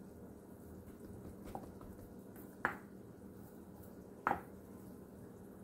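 Two short clacks about a second and a half apart, a metal biscuit cutter knocking against a wooden cutting board while cutting biscuit dough, each with a brief ring.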